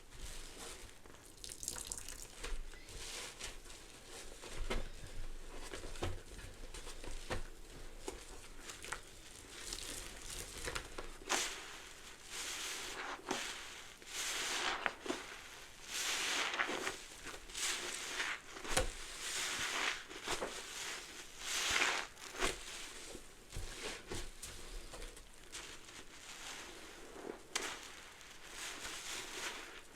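A soap-soaked sponge squeezed and released over and over in foamy suds of cleaner and bubble bath, with wet squelches and the fine crackle of popping foam. The squeezes come irregularly and are louder and closer together through the middle stretch.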